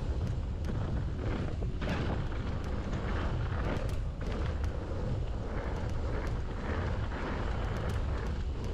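Mountain bike ridden down a rough grass and dirt track: tyres rolling and the bike rattling and knocking over bumps, under a steady rumble of wind buffeting the microphone.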